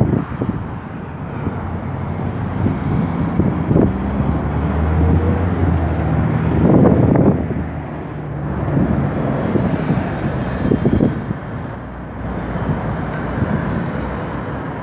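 Street traffic with a heavy vehicle's engine running, its low hum swelling for a few seconds near the middle as a city bus passes.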